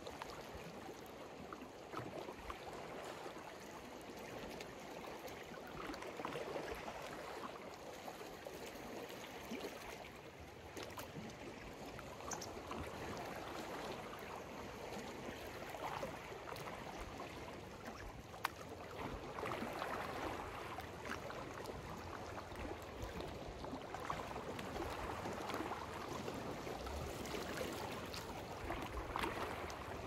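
Small sea waves lapping and washing onto the shore, the water sound swelling and easing every few seconds.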